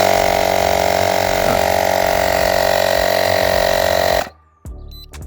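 Portable cordless tyre inflator's small electric piston compressor running with a loud, steady buzz while pumping up a motorcycle tyre, then stopping abruptly about four seconds in.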